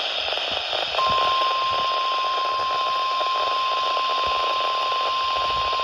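NOAA Weather Radio 1050 Hz warning alarm tone: one steady, unbroken pure tone starting about a second in. It plays over radio-receiver hiss and static. This is the tone that switches weather-alert receivers on, sent here as part of a required weekly test.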